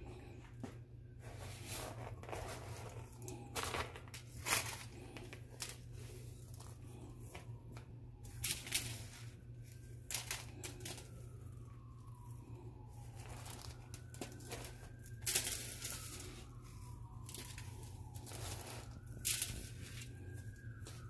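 Aluminium foil crinkling and crackling under hands pressing a crumb coating onto whole fish, in irregular rustles with sharper crackles every few seconds.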